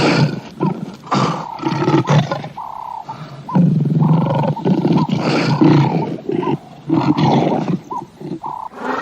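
An animal's deep, rough roaring calls, repeated in a ragged series with short breaks between them.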